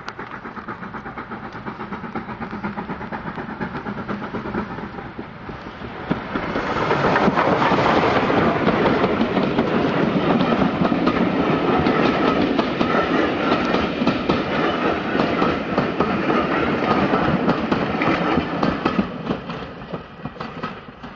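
Steam train chugging toward the listener, its exhaust beats coming in a regular rhythm and growing louder. About six seconds in the locomotive passes close and the sound jumps to a loud dense rush, then the carriages roll by with a clickety-clack of wheels over the rail joints, fading near the end.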